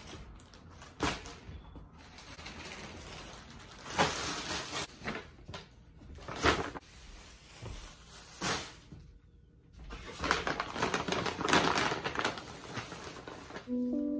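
Plastic and paper shopping bags rustling as they are handled and set down, with several sharp bumps in between.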